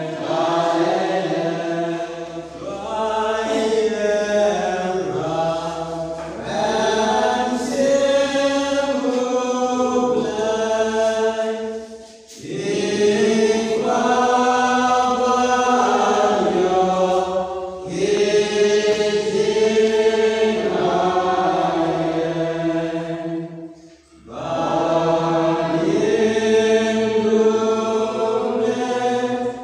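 A church congregation singing a hymn together in long sustained phrases, with short breaks about twelve seconds in and again near twenty-four seconds.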